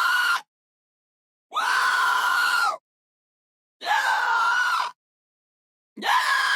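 Pig squealing: shrill, high-pitched squeals about a second long, one every two seconds or so, each cutting off sharply into silence. A squeal ends just at the start, two full ones follow, and another begins near the end.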